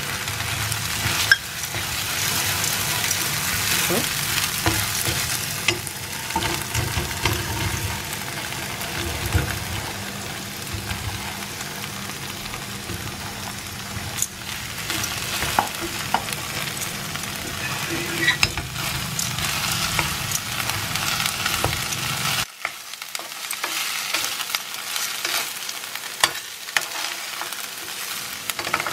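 Onions, cornflour gravy and fried chicken pieces sizzling in a nonstick frying pan while a wooden spatula stirs and scrapes through them, with occasional knocks of the spatula on the pan. The cornflour slurry is cooking down into a thick, sticky gravy.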